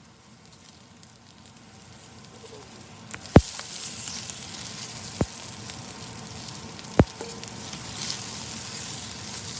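Food frying in a hot pan with sesame oil, the sizzle growing louder about three seconds in, with three sharp knocks of a utensil against the pan.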